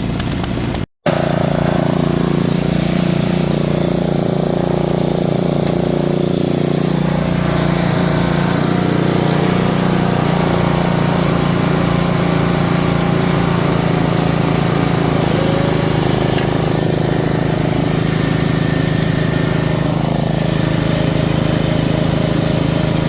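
Small gasoline engine of a log splitter running steadily, after a brief break in the sound about a second in.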